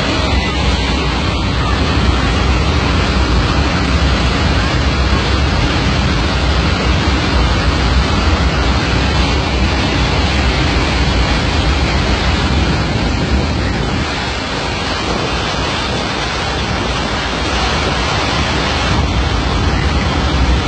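Loud, steady rush of air into an airliner cabin through a door opened in flight, a deep, even roar that drowns everything else. It eases slightly about fourteen seconds in.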